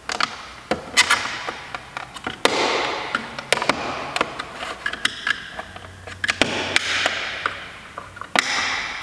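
Repeated sharp clicks and taps with short scraping between them: a screwdriver prying at the plastic tabs and cover of a 2008 BMW 3 Series (E90) side mirror to pop the cover off.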